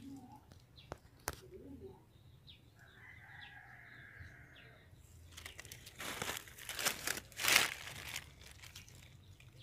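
Dry mango leaves rustling and crunching in several loud bursts from about five to eight seconds in, loudest near the end, after a single sharp click about a second in.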